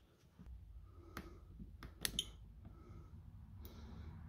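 Faint hand handling of small battery parts: a few light clicks and ticks, the clearest about a second in and twice near two seconds, over a low steady hum.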